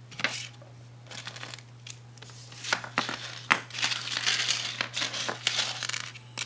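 Small jewelry items and trinkets being handled and put back into a jewelry box by hand: scattered clicks and crinkling rustles, sparse at first and busier in the second half.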